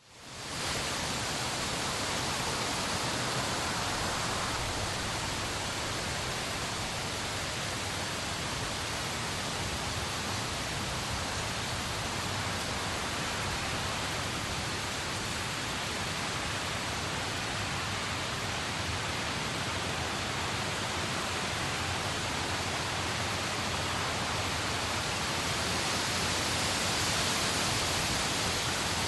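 Steady, even rushing hiss spread across all pitches, fading in within the first second and holding unchanged.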